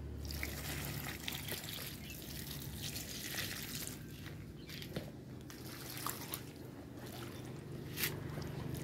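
Rice-washing water and wet kitchen scraps trickling and dripping from a tilted plastic basin onto a compost pile. A few faint clicks, and a sharper one near the end.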